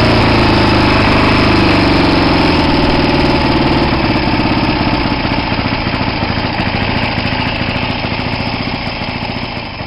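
1967 Triumph T100's 500 cc parallel-twin engine running, its note falling and growing steadily quieter as the revs drop. The separate firing pulses become distinct near the end.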